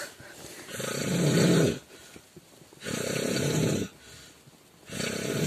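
A man snoring in his sleep: three loud snores, each about a second long and about two seconds apart, the last still going at the end.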